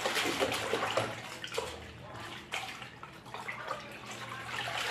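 Water sloshing and splashing as laundry is worked by hand at a top-loading washing machine, over a low steady hum.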